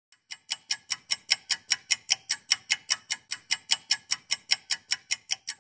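Rapid, evenly spaced high-pitched ticking, about five ticks a second, starting faint and then holding a steady level.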